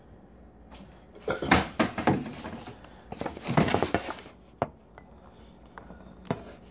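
Rummaging in a kitchen cabinet: containers and dishes knocking and clattering against each other in two bursts, then a couple of single sharp knocks near the end.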